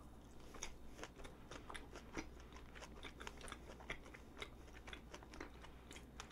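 Close-miked chewing of a strawberry mochi with red bean paste: faint, moist mouth clicks and smacks, several a second.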